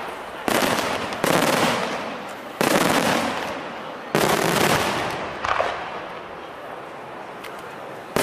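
Aerial fireworks shells bursting: five loud bangs in the first five and a half seconds, each dying away over a second or so, then a quieter spell with a few faint cracks.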